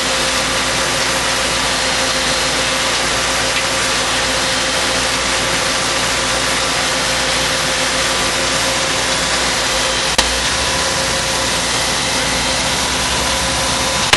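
T5 soil processing machine running steadily as it works soil: a constant mechanical noise with a few steady tones in it, and one short click about ten seconds in.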